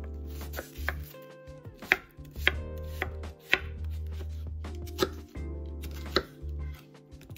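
A kitchen knife chopping vegetables on a cutting board, about seven sharp strokes at an uneven pace.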